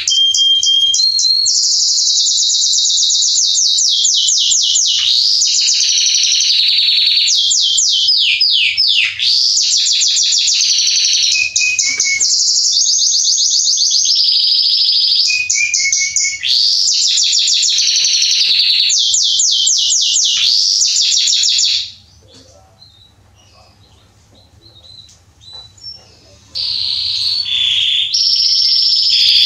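Male domestic canary singing a long song of fast trills and rapidly repeated high notes. It breaks off about three-quarters of the way through for some four seconds, then starts singing again.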